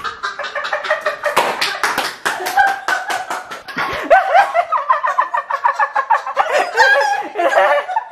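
Two people laughing hard, with a woman's loud high-pitched shrieks and squeals of laughter in quick runs.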